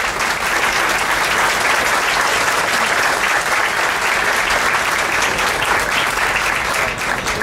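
Audience applauding, many hands clapping together, dying down slightly near the end.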